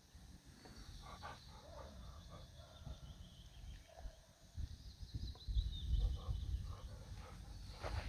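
Quiet outdoor ambience with birds chirping faintly in the background, soft scattered rustles close by, and low rumbling bursts on the microphone that grow louder from about halfway through.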